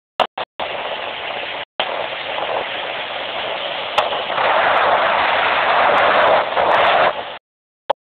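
Wind rushing over the microphone of a speedboat under way, a rough hiss that grows louder about four seconds in. The sound drops out for short moments several times and cuts off near the end.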